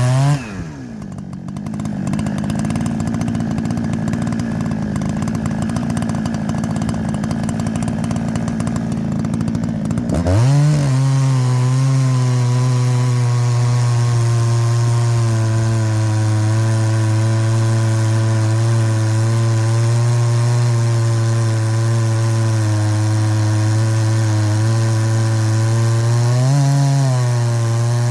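Chainsaw with a 36-inch chain filed for ripping runs at high revs while cutting wood. Its pitch drops right at the start and it sounds rough for about ten seconds. It then climbs back to a steady high engine note, with a brief rise in pitch near the end.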